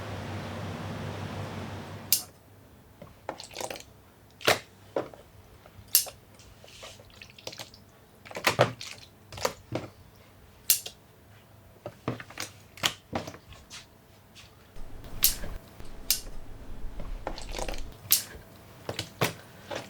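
A steady rushing noise that cuts off suddenly about two seconds in, followed by a series of irregular sharp clicks and knocks, with a low rumble for a few seconds near the end.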